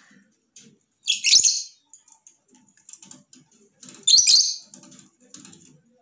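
Fischer's lovebird giving two short, shrill squawks, one about a second in and another about four seconds in.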